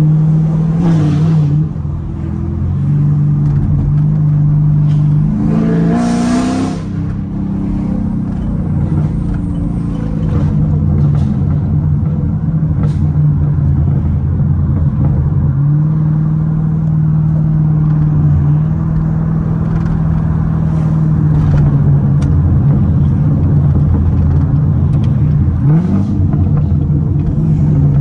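Straight-piped, catless-header C7 Corvette Grand Sport's 6.2-litre V8 exhaust rumbling steadily at low city-driving revs, heard loud from the open-roof cabin. About six seconds in it revs up briefly, and near the end the pitch rises again as it accelerates.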